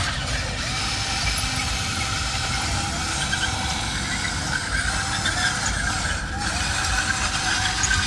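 Huina remote-control excavator running: a steady mechanical drone with short whines that rise and fall as the arm and bucket move.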